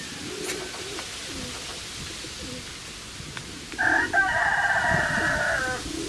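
A rooster crows once, about four seconds in, a single call of about two seconds that is the loudest sound here. Before it, pigeons coo low and softly.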